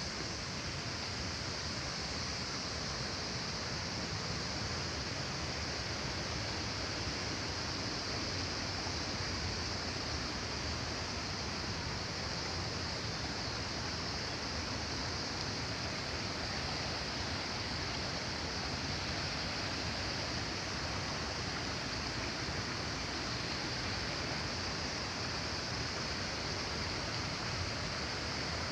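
Steady rushing of the Panimur waterfall's water, an even, unbroken noise with a strong high hiss on top.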